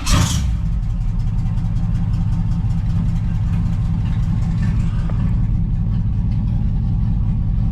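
Third-generation Chevrolet Camaro engine catching with a brief loud burst at the start, then running steadily. The owner suspects its ignition timing may be a little advanced.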